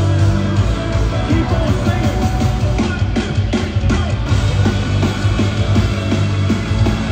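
Live rock band playing in an arena: bass guitar, electric guitar and drums. A steady drum beat comes in about a second in.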